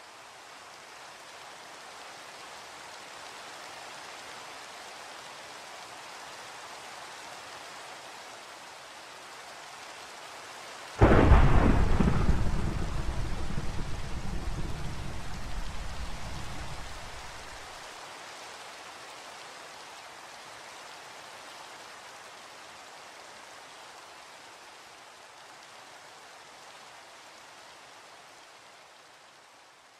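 Steady rain with a single thunderclap about a third of the way in: a sudden crack, then a low rumble that dies away over about seven seconds. The rain slowly fades out near the end.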